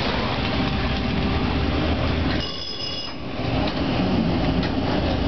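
Toronto ALRV articulated streetcar running, heard from inside the car: a steady rumble and hiss of the motors and steel wheels on the rails, with a brief high-pitched ringing tone about two and a half seconds in.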